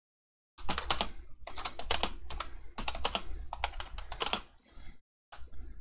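Typing on a computer keyboard: a quick, continuous run of keystrokes starting about half a second in, a brief pause near the end, then a few more keystrokes.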